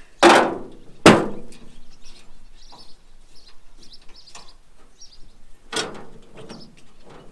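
Two loud metal clanks in quick succession, then lighter knocks and rattles, as a loosened steering wheel and column are pulled and worked free of the dashboard of a rusty car shell. Birds chirp faintly.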